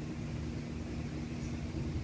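Strong gusty wind blowing through the trees and buffeting the microphone with a low rumble, over a steady low hum.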